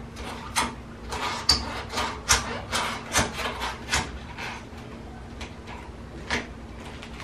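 Fingers scraping and peeling leftover double-sided tape off a bare countertop: a run of short, irregular scratchy rubs that thin out after about four and a half seconds.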